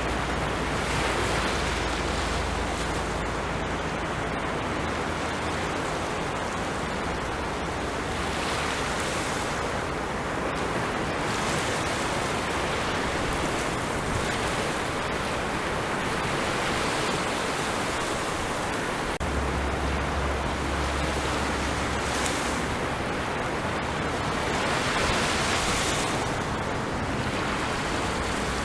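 Sea waves breaking on a shore: a steady rush of surf that swells again every few seconds.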